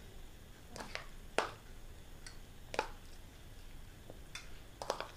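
A metal spoon tapping lightly on glass tumblers and a plastic bowl while soft noodles are spooned out: about six short, irregular clicks.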